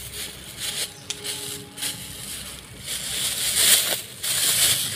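Rustling, crackling noise that swells in two louder surges in the second half.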